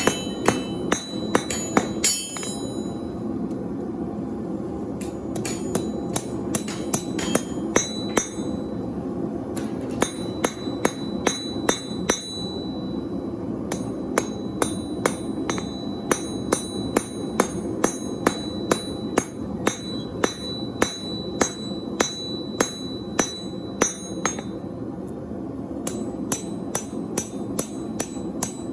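Hammer blows on steel over an anvil, each strike ringing, about two a second in runs broken by pauses of a couple of seconds, over a steady low rumble.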